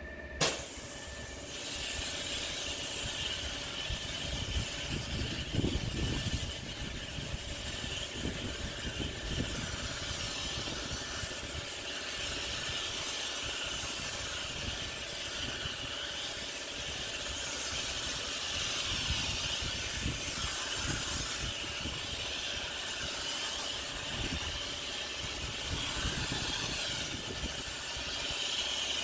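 Pressure-washing rig running: a sharp click near the start, then a steady hiss of spray over the low running of the machine as chemical is sprayed onto the patio.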